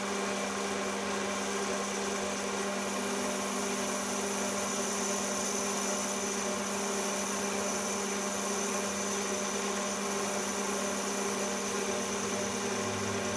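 Metal lathe running with its chuck spinning an aluminium piston blank: a steady hum with a faint high whine over it.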